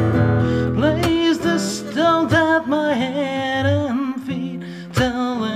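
Acoustic guitar played in a slow folk song, with a woman singing along over it.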